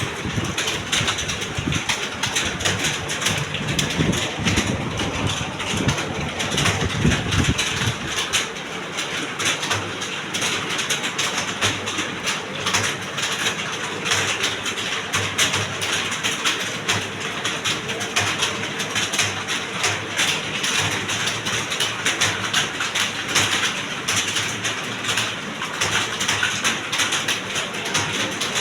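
Many computer keyboards clattering at once, a dense, continuous patter of key clicks from a room of people typing. A low rumble runs under it for the first several seconds.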